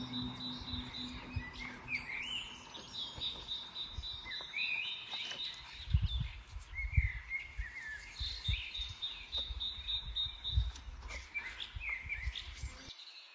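Small birds chirping in repeated short rising calls, with a rapid trilling note, while the last low guqin note dies away in the first couple of seconds. Wind gusts rumble on the microphone in the second half, and the sound cuts off abruptly just before the end.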